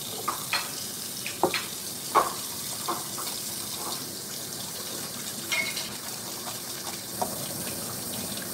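Kitchen tap running steadily, with irregular short knocks of a knife cutting raw chicken on a wooden cutting board.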